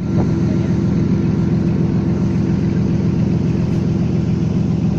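An engine running steadily at a constant speed: a dense, even drone with a steady hum above it.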